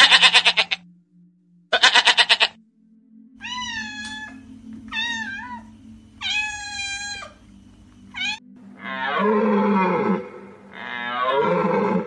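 Goat bleating twice with a quavering tremble, then a young cat meowing four times. In the last few seconds, two long calls that fall in pitch, from a deer.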